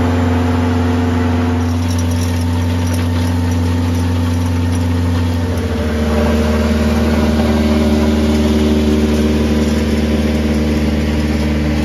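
Satoh Bison S650G tractor's small 1-litre four-cylinder gasoline engine running steadily under load while blading gravel, its note shifting about two seconds in and again about six seconds in. The engine is running well on freshly replaced ignition parts and a new coil.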